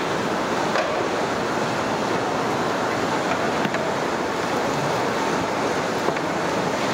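Steady rushing hiss of a large pot of water and vegetables boiling hard over a wood fire as it is stirred with a long metal ladle, with a few faint knocks.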